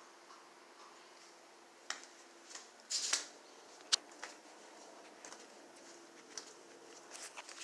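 Handling noise from a handheld phone: scattered faint rustles and sharp clicks, the loudest a rustle about three seconds in and a click about a second later, over a faint steady hum.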